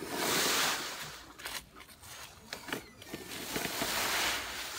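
Dry fallen leaves rustling and crunching in several bursts as a child moves about in a leaf pile.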